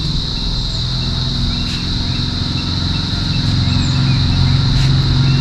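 A low engine hum that slowly grows louder, over a steady high-pitched insect drone, with a few faint bird chirps.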